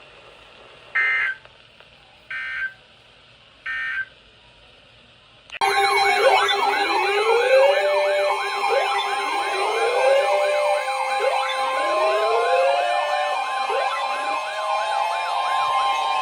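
Three short data-tone beeps of an Emergency Alert System end-of-message signal. About five and a half seconds in, a loud mix of several electronic sirens starts up, with repeated rising wail sweeps, fast yelps and steady tones layered together.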